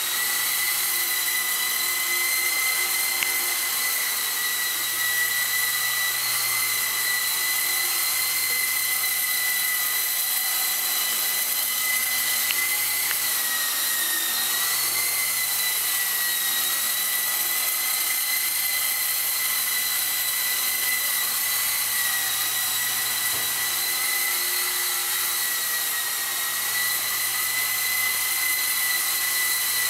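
E-flite CX3 Huey coaxial RC helicopter's electric motors and rotors running in flight: a steady high whine, whose pitch dips slightly about halfway through and then comes back up.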